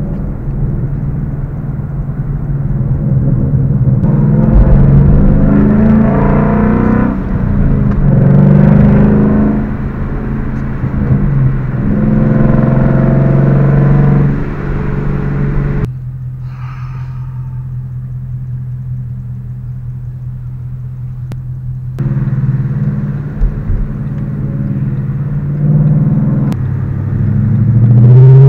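Ford Mustang GT's V8 engine accelerating, heard from inside the cabin: the pitch climbs and drops back at each gear change over several pulls. Past the middle it settles to a quieter steady drone for several seconds, then builds again near the end.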